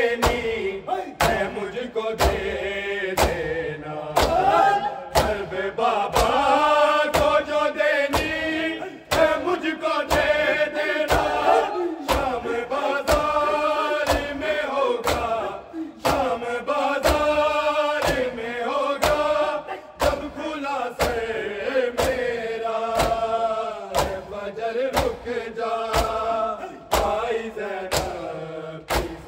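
Men chanting an Urdu noha (lament) together in unison, over a steady beat of sharp slaps from bare-handed chest-beating (matam).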